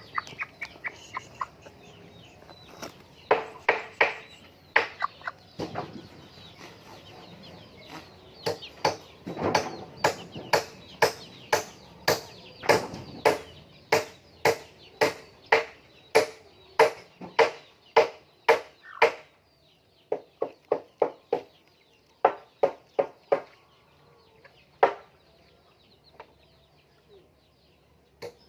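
Laying hens clucking: a long run of short, sharp clucks at about two a second, thinning out in the last third.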